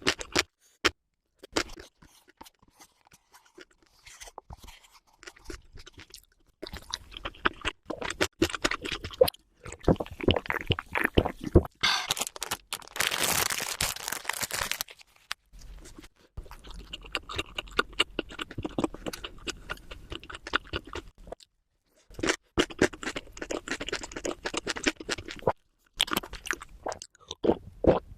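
Close-miked mukbang eating sounds sped up to double speed: rapid crunching and chewing of food in a person's mouth, in runs broken by short pauses, with a denser, louder stretch of crunching near the middle.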